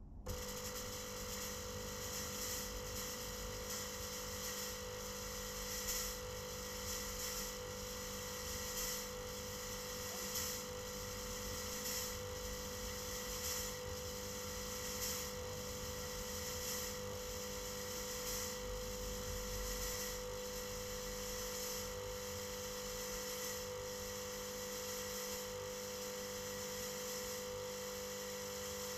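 Steady electric hum with a strong mid-pitched tone, from a thermal fogging machine running inside a closed car cabin.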